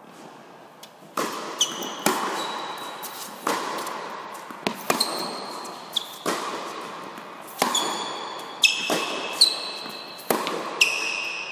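Tennis rally: the ball is struck by rackets and bounces on the court in a steady back-and-forth, with sharp hits echoing in a large indoor hall. Several hits are followed by a short high-pitched ring.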